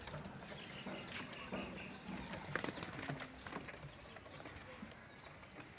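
Madrasi fancy pigeons stirring on a wooden coop: scattered light taps and wing flutters, the loudest about two and a half seconds in, with a soft coo.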